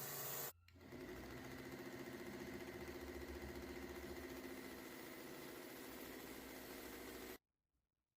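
Small electric motor of a mini belt sander running steadily. It drops out for a moment about half a second in, then runs on until it cuts off abruptly near the end.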